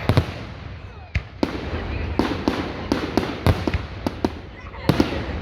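Fireworks going off: a rapid, irregular string of sharp cracks and bangs, thickest about two seconds in and again near the end.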